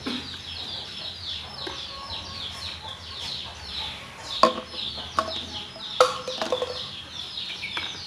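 Chickens clucking, with a steady run of short, high, falling chirps throughout. Two sharp knocks stand out, about four and a half and six seconds in.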